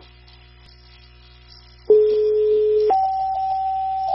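Fire department two-tone sequential page heard over a radio scanner. A brief faint hiss is followed, about two seconds in, by a steady lower tone lasting about a second. Then a higher steady tone starts and is held past the end. This is the tone-out that sets off a department's pagers for a mutual aid dispatch.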